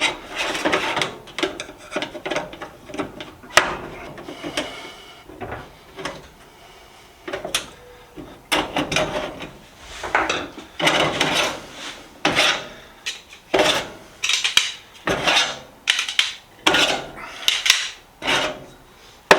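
Repeated scraping and rubbing strokes on the metal parts of a steel rolling tool box, irregular at first and then about one a second, with a few sharp clicks.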